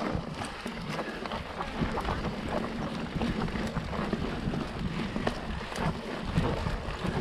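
Mountain bike riding over a dirt forest trail: steady tyre noise with many small clicks and knocks from the bike.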